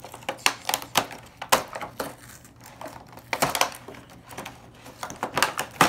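A cardboard toy box being torn open by hand: irregular crackling, tearing and scraping of cardboard and tape, with denser bursts about three and a half seconds in and near the end.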